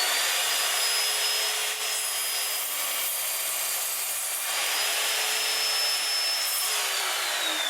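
Evolution Rage 4 chop saw running at full speed with a high steady whine, its blade cutting through a piece of wood, the whine fading out while the blade is in the cut from about three to four and a half seconds in. Near the end the motor is switched off and the whine falls steadily as the blade winds down.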